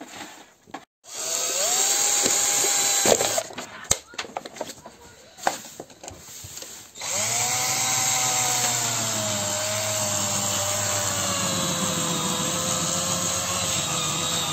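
Cordless drill running twice: a short burst about a second in, then a long run from about seven seconds as the bit bores into a plastic bottle. During the long run the motor's whine slowly drops in pitch. Knocks and handling clicks fall between the two runs.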